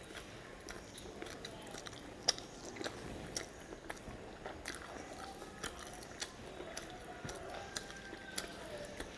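A person chewing a mouthful of magur catfish curry with rice, eaten by hand, with wet lip smacks and scattered sharp mouth clicks.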